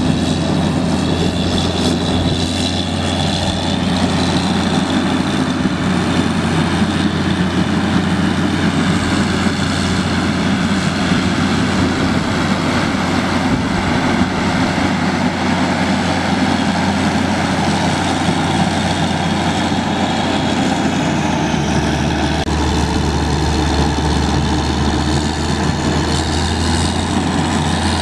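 John Deere 9520 tractor's 12.5-litre diesel engine running steadily; about three-quarters of the way through its low note shifts deeper.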